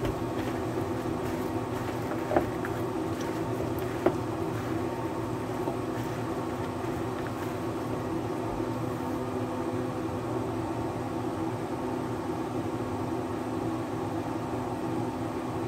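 Steady mechanical hum with a few fixed tones, like a fan motor running, under light squelching and knocks of chicken wings being tossed by hand in a plastic bowl; two sharper clicks come about two and a half and four seconds in.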